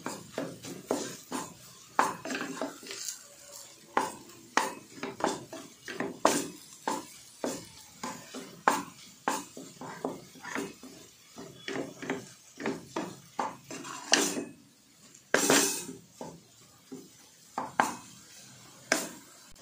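Wooden spatula stirring and mashing potato palya in an aluminium pressure cooker, knocking and scraping against the pot about once or twice a second, with two longer scrapes a little after the middle.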